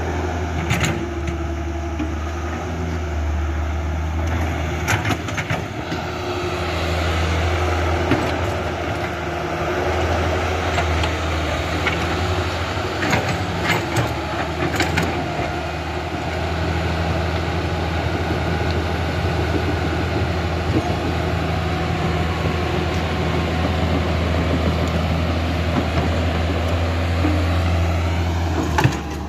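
Steady low diesel engine drone of heavy construction machinery, with a few sharp clicks about a second in, around five seconds in and in a cluster near the middle.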